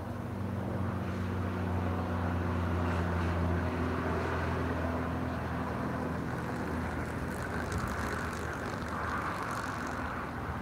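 An engine droning steadily, its low hum strongest for the first four seconds and then weakening, over a steady hiss.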